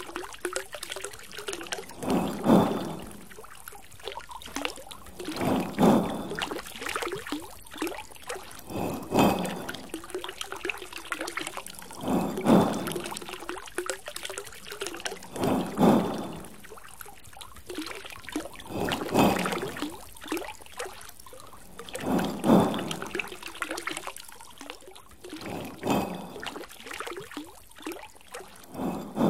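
Water from a drinking fountain trickling and splashing into its basin, swelling into a louder gush about every three seconds.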